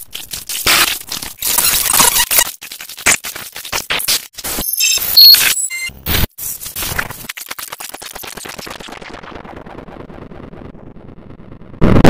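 Heavily distorted, glitch-edited logo audio: harsh noise chopped into rapid stuttering bursts, with a few short high beeps about five seconds in. A noise then fades over several seconds as its high end drops away, and a loud burst comes right at the end.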